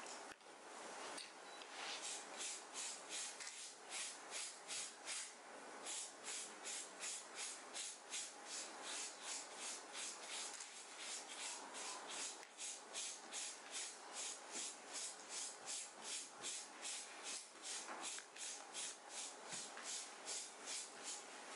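Scrubbing at the collar of a stained shirt to get the stain out: steady back-and-forth rubbing strokes, about two or three a second.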